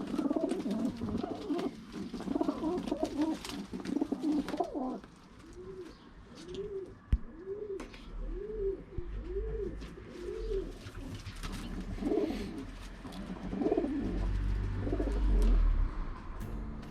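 Racing pigeons cooing: many overlapping coos at first, then one bird's repeated rising-and-falling coo about every 0.7 s, with more coos later. A low rumble comes in near the end.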